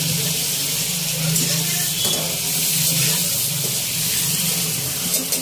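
Paneer cubes sizzling as they fry in oil in a pan, a steady hiss, with a couple of clicks near the end.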